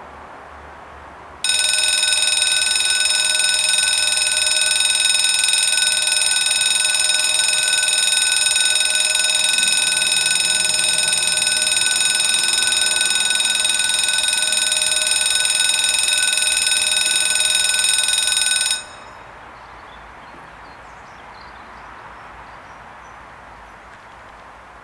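The two electric warning bells of a French level crossing ringing continuously and loudly as the barriers come down, signalling an approaching train. They start about a second and a half in and cut off suddenly after roughly seventeen seconds.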